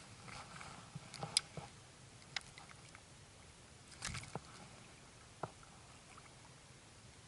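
A few faint clicks and light knocks from handling light fishing tackle: a cluster about a second in, another at about four seconds and a single sharper click later. Under them is a low steady hiss of calm water.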